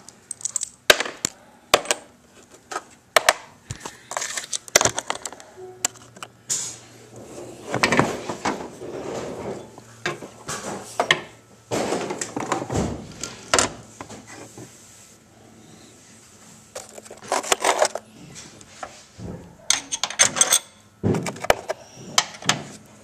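Irregular clinks, knocks and rattles of metal hardware being handled: a regulator, its bracket and a bolt being fitted by hand in an engine bay.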